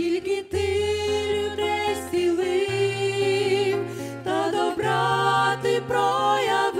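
Music: a Ukrainian Christian worship song, with women's voices singing a melody over an accompaniment of long held low notes.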